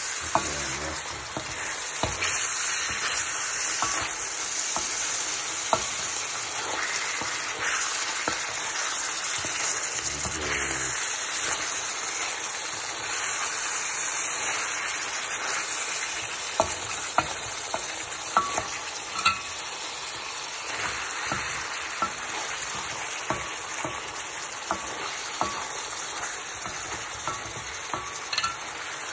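Beef frying in a pan with onion, carrot and bell pepper: a steady sizzle, with a utensil clicking against the pan now and then as it is stirred, more often in the second half.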